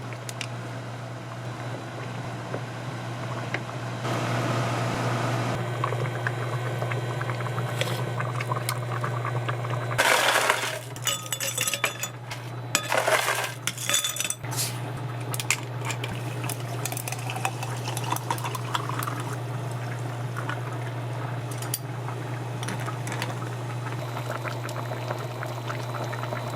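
Kitchen sounds: clinks of glass and dishes over a steady low hum, with two louder rushing bursts about ten and thirteen seconds in.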